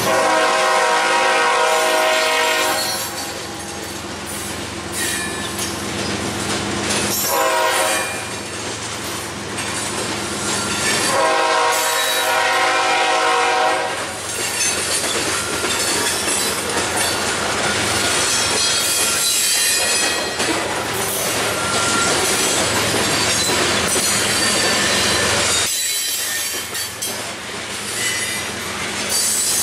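Florida East Coast Railway freight train passing close by. A locomotive air horn sounds three times, long, short, long, in the first fourteen seconds, over diesel engine rumble. Then the freight cars roll past with steady wheel noise, thin squealing and clicking over the rail joints.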